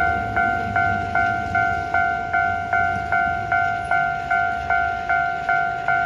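Japanese railway level crossing's electronic warning bell ringing steadily, about two and a half dings a second: the crossing is down for passing trains. A low train rumble runs underneath.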